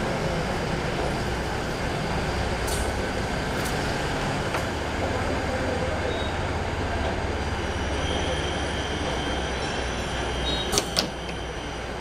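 Steady mechanical hum of a uPVC double-head profile cutting machine running, with a few clicks, the loudest two close together near the end.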